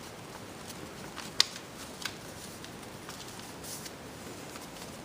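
Paper being handled during crafting: a few light clicks and a brief rustle over a steady background hiss, the sharpest click about a second and a half in.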